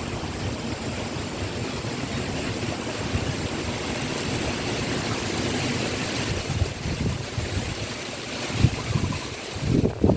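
Heavy rain falling in a steady hiss, with strong wind gusting against the microphone in low buffeting thumps during the last couple of seconds.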